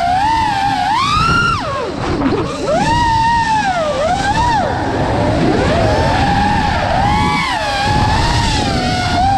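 Motors and propellers of an iFlight Nazgul 5 FPV quadcopter whining, the pitch sweeping up and down again and again as the throttle changes, over a rushing wash of propeller air. Heard from the GoPro mounted on the drone.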